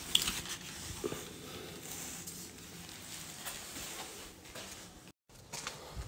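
Clumps of moss with dry grass and pine needles rustling and crackling as they are handled and dropped, with the loudest crackle just after the start. The sound cuts out briefly about five seconds in.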